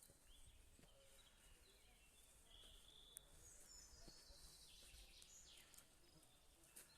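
Faint birdsong: small birds calling with short high chirps and quick falling whistles.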